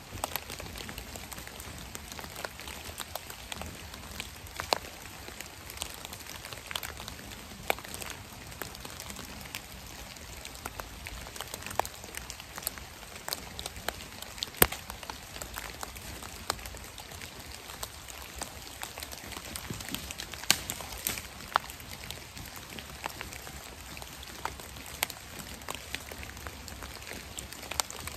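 Raindrops falling on a leaf-covered forest floor: scattered sharp ticks and taps at irregular moments over a faint steady hiss.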